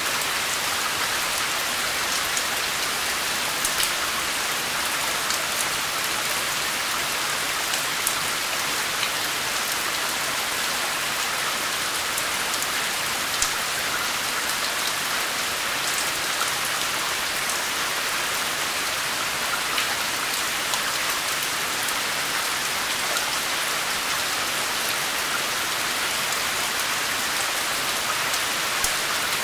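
Steady rain falling, an even hiss with scattered sharp drop clicks.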